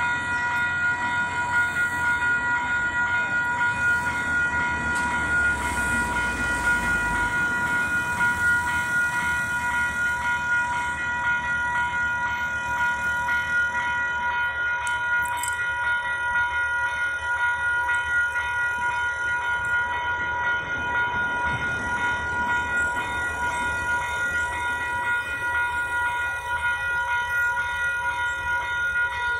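Level crossing warning bells ringing steadily, several electronic tones sounding together without a break: the crossing is activated for an approaching train.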